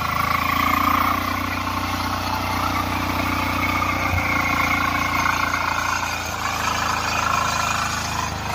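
Husqvarna TF 544 power weeder's single-cylinder air-cooled diesel engine running steadily while the machine tills soil.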